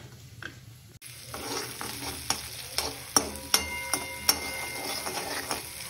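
Chopped capsicum and garlic sizzling in a metal kadai while a metal spoon stirs them, with repeated sharp clinks and scrapes of the spoon against the pan. It starts about a second in; before that there are only a few light clicks.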